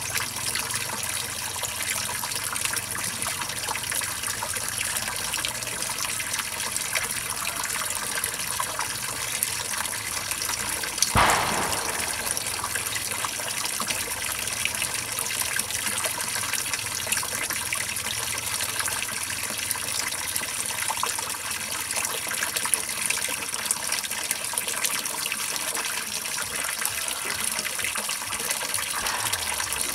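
Water streaming steadily over the rim of an overflowing plastic tub and splashing below. A single sudden loud thump about eleven seconds in.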